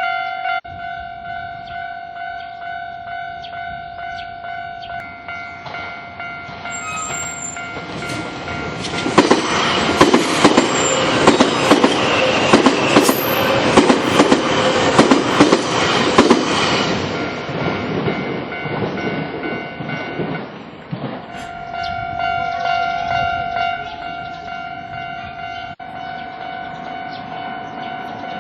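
A Japanese level-crossing warning bell rings with a steady, repeating electronic tone while an electric train passes over the crossing. The train is loudest in the middle, with its wheels clattering over the rail joints. The bell is heard plainly again as the train moves away.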